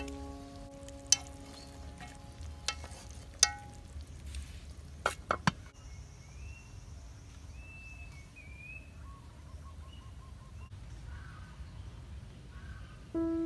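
Chopsticks knocking sharply against a metal cooking pot several times, with a short metallic ring, then a bird chirping a few times over a low steady outdoor background.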